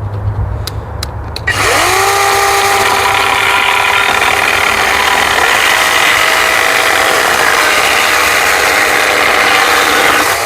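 Battery-powered 20-volt chainsaw with a 12-inch bar cutting through a hardwood log. It starts suddenly about a second and a half in with a motor whine that rises quickly and then holds steady under load, and stops just before the end.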